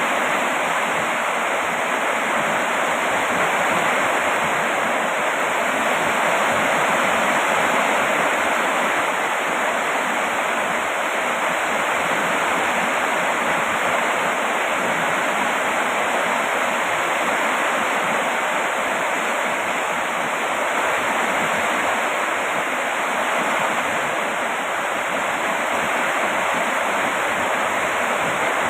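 Steady rain falling: a dense, even hiss with no separate drops standing out and no change in strength.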